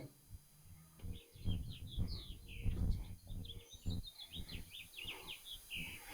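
Small songbirds chirping continuously in quick, short notes, with soft low knocks and bumps of someone handling parts.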